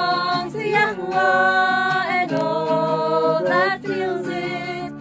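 A small group of voices singing a slow worship song together, holding long notes, with an acoustic guitar underneath.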